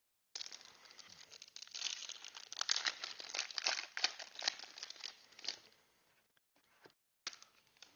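Foil wrapper of a Panini Donruss Clearly Football trading-card pack being torn open and crinkled: a dense crackling that starts just after the beginning, is loudest in the middle and dies away after about five and a half seconds, followed by a few faint clicks.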